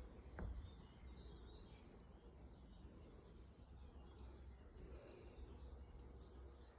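Near silence: quiet outdoor ambience with faint scattered bird chirps and a low rumble, and a single soft knock about half a second in.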